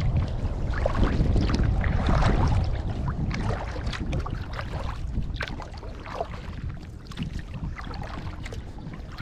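Paddle strokes splashing and water lapping against an inflatable kayak, with wind rumbling on the microphone that is heavier in the first half and eases about halfway through.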